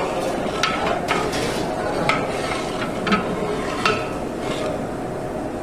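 Metal ladle stirring food in a large cooking pot, striking the pot's side about five times with short metallic rings, over a steady hiss of frying.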